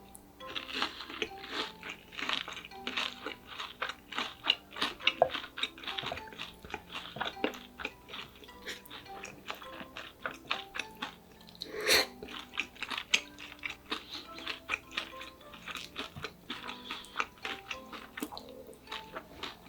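Close-miked crunching and chewing of crispy deep-fried pork cutlet (donkatsu), a dense run of crisp bites and chews with one louder crunch about twelve seconds in.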